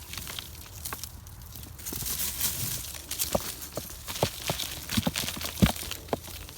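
Hands digging through potting soil in a potato grow tote, crunching and rustling, then a run of light knocks over the last few seconds as small potatoes are handled.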